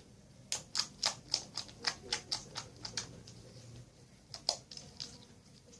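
Homemade clear-glue slime squeezed and worked by hand, making a quick run of sharp clicks and pops, about four a second, then a few more near the end.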